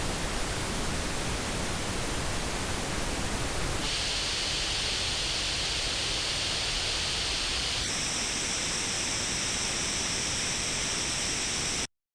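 Pink noise test signal played through headphones and picked up by an artificial ear simulator, at a steady level. Its tone colour changes abruptly twice, about four seconds apart, and it cuts off suddenly just before the end.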